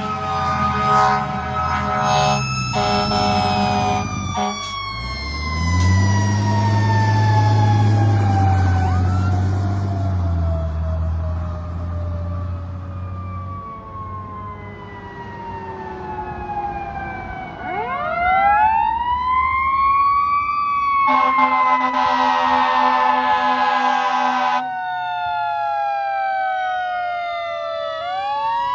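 Fire trucks responding with sirens: one siren tone winds slowly down in pitch while another siren's wail sweeps sharply up twice, a little over halfway and again near the end. Air horn blasts sound at the start and once more for about three seconds after the first wail, and a deep truck engine drone passes in the middle.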